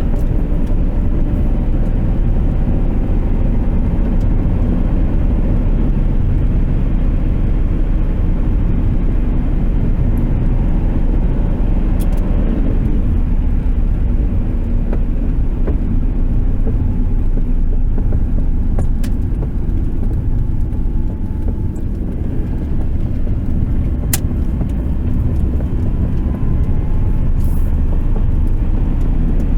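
Cabin sound of a 1993 Subaru Impreza (EJ18 1.8 L engine) driving slowly: a steady low engine and road rumble, with a few sharp, isolated pops from somewhere in the middle of the dash, the loudest near the end. The popping is an undiagnosed fault that appears only once the car is warmed up after highway driving, when slowing down.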